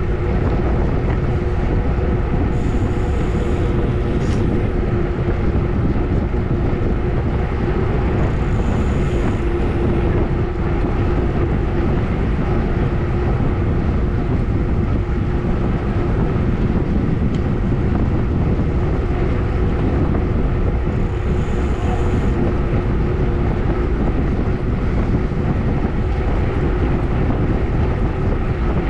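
Steady rush of wind over an action camera's microphone on a road bike descending at speed on asphalt.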